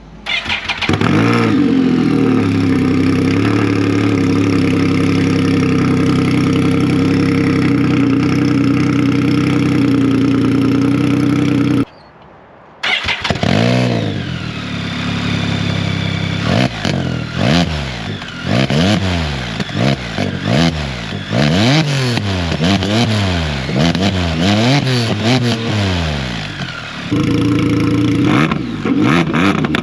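Can-Am Spyder F3's Rotax 1330 ACE inline three-cylinder engine through an RLS Echo Series closed exhaust, running at a steady note. After a brief break it is blipped over and over, the revs rising and falling about once a second, then it holds steady again near the end.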